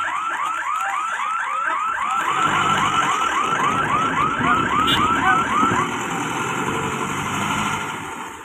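Level-crossing warning siren sounding a fast run of rising electronic whoops, about three a second, while the boom barrier lifts; it stops about six seconds in. Under it a bus engine runs as the bus pulls across the tracks.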